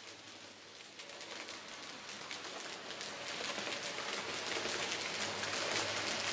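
N-scale model freight train rolling along the track: a dense, fine clicking and rattling of small metal wheels on the rails over a low steady hum, growing louder through the second half.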